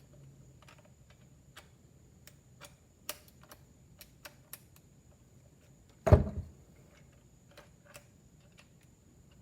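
Scattered light clicks and taps of a Makita impact driver being handled, its bit holder being worked by hand, with one loud thud about six seconds in.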